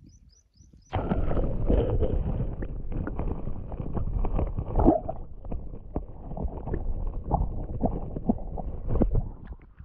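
Muffled, churning water sound from a camera held under the surface in shallow lake water. It starts suddenly about a second in and is full of knocks and bumps. A few high bird chirps are heard just before it.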